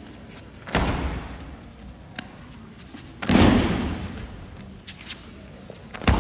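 Three heavy thuds, each with a sharp start and an echo that dies away in a large hall: an aikido partner's body hitting the mat as he is thrown and takes breakfalls, the middle one the loudest.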